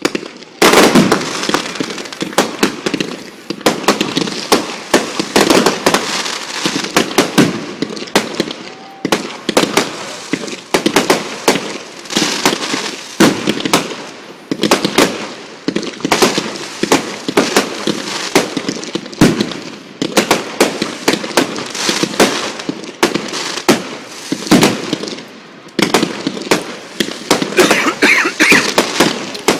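Fireworks display: a rapid, unbroken barrage of sharp bangs and crackling reports.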